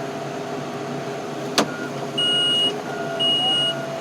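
Steady hum of an idling engine, with a sharp click midway and then two high electronic beeps, each about half a second long and about a second apart.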